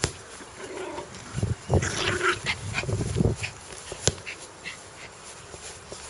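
Dog growling, loudest in a rough stretch from about one and a half to three and a half seconds in, quieter before and after. A single sharp click about four seconds in.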